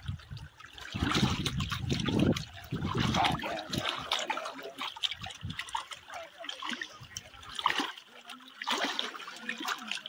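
Stream water at a waterfall trickling and splashing, with a loud low rumble for about two and a half seconds starting a second in. Faint voices come and go in the background.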